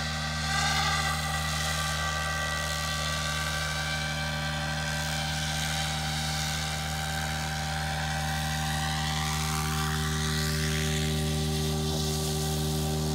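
Radio-controlled SAB Goblin 700 helicopter in flight: a steady drone from its motor and rotor, with a high whine that sweeps up and down in pitch as it passes, once near the start and again around two-thirds of the way through.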